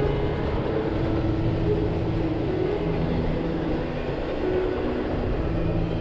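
A freight train of enclosed autorack cars rolling past, a steady noise of wheels on rails.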